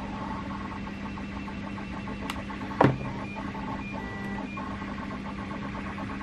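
Small clicks and taps of plastic parts being handled while hot glue is applied to a connector in a 3D-printed plastic battery case, over a steady low hum. One sharper knock comes just under three seconds in.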